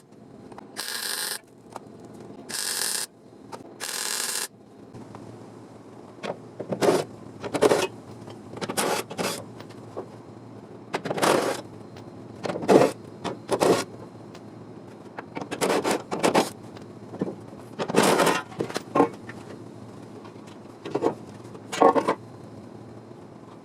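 Several short hissing bursts, then a series of short scraping strokes on car body metal, at irregular intervals.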